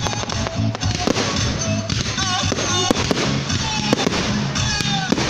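Fireworks going off in a rapid series of sharp bangs and cracks as rockets launch and burst, over loud music with a steady bass.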